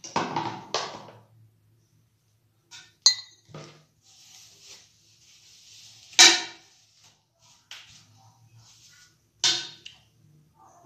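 Scattered clinks, knocks and rustles of things being handled in a small tiled bathroom: a sharp clink with a brief ring about three seconds in, the loudest bump about six seconds in and another near the end.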